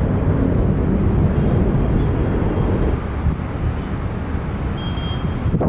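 Jet airliner engine noise: a steady low rumble that eases slightly about three seconds in.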